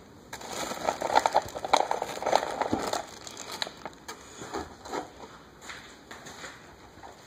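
Plastic wrapping crinkling and crackling as clear plastic RC truck body shells are lifted out of a cardboard box, densest in the first few seconds, then thinning to scattered crackles.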